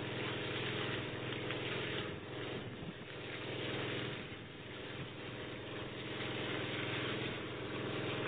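Engine of a hollow-flight auger drill rig running steadily with an even hum.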